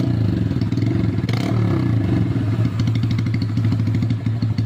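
Motorcycle engine idling steadily with a fast, even beat, and a brief rise and fall in pitch about a second and a half in.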